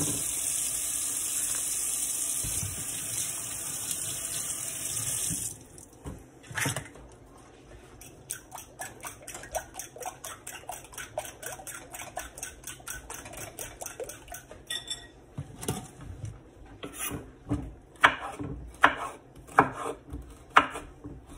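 A kitchen tap runs steadily for about five seconds as peppers are rinsed. A fork then beats raw eggs in a glass bowl with fast, light, rhythmic clinks. Near the end a knife slicing a bell pepper strikes a wooden cutting board in sharp knocks about once a second.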